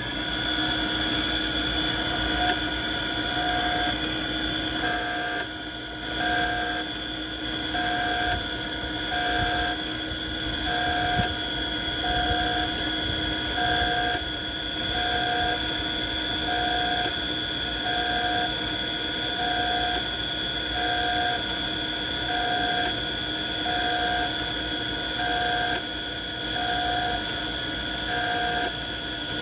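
Italian hydraulic surface grinder running wet under flood coolant: a steady motor hum and whine, with a short grinding surge repeating about every one and a half seconds as the table carries the work back and forth under the wheel.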